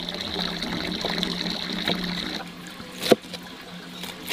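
Cleaver cutting fresh wood ear fungus into strips on a plastic cutting board, with two sharp knocks of the blade on the board in the second half, about a second apart, over a steady background hiss.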